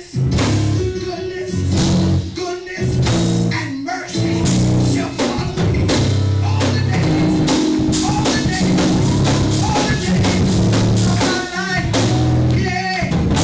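A live church band playing up-tempo music with drums and guitar, a praise break in the service.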